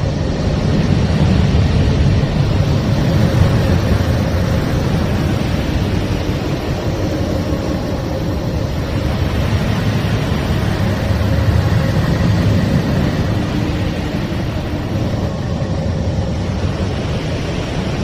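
The 'sound of Neptune' from NASA's Voyager spacecraft: the probe's electromagnetic recordings turned into audio, heard as a loud, steady, deep rumbling hiss. It swells about a second in and again around eleven seconds in, with a faint steady tone underneath.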